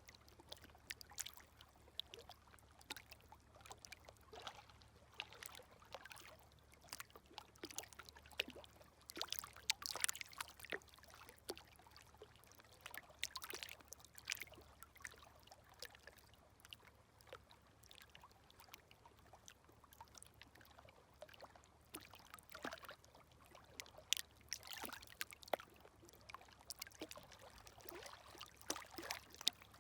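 Gentle small sea waves lapping at the shore, heard as faint, irregular trickles, drips and small splashes with no big breaking wave.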